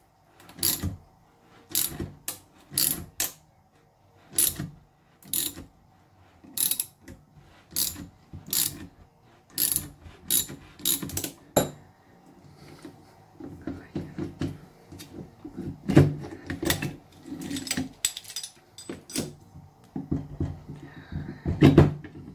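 Ratchet wrench clicking in short strokes as it turns a puller's forcing screw to draw the rear bearing out of an alternator's rear housing. About halfway through the sharp clicking stops and gives way to duller metal knocks and clatter as the parts are handled and come apart, with one loud knock near the end.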